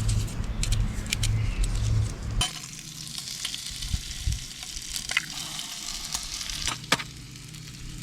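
Bacon sizzling in a frying pan: an even hiss with scattered sharp crackles. A low rumble fills the first couple of seconds before the sizzle takes over.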